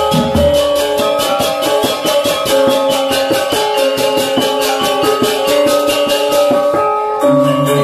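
Balinese gamelan gong ensemble playing a lelambatan piece: bronze metallophones and kettle gongs ringing over a fast, even clatter of ceng-ceng cymbals at about five strokes a second. The cymbals stop about seven seconds in, and lower gong tones come in.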